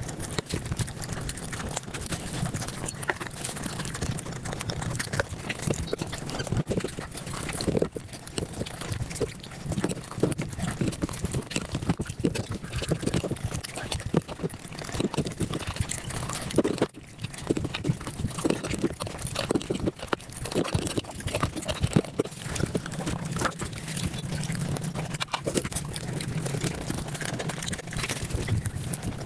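Eating sounds sped up about five times: a dense, rapid patter of chewing, lip-smacking and mouth clicks, continuing without a break.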